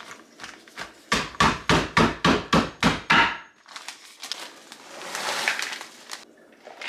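Knife chopping walnuts on a cutting board: a quick run of about nine sharp chops, roughly four a second, followed by a softer scraping noise lasting a couple of seconds.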